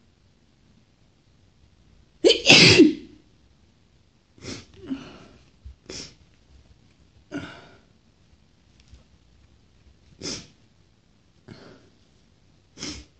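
A woman's single loud, full sneeze about two seconds in, the long-awaited relieving sneeze. It is followed by a string of short, quieter sniffles.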